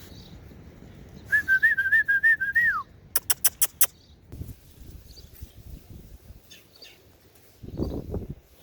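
A warbling whistle lasting about a second and a half that ends in a falling note, followed by five quick, sharp clicks.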